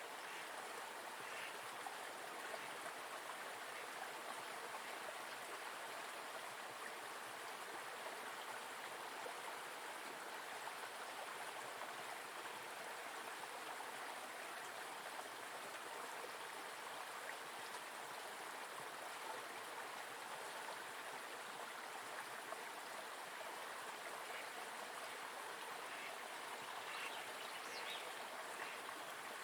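Small forest river running steadily: an even rush of flowing water.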